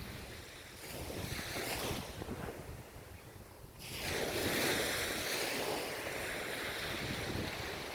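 Ocean waves washing onto the shore, with a quieter lull in the middle before the next wave breaks and surges up about four seconds in.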